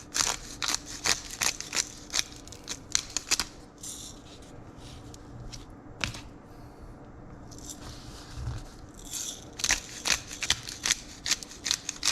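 Pepper grinder being twisted, a run of short crunching clicks at about three or four a second. It pauses in the middle and starts again about two-thirds of the way through.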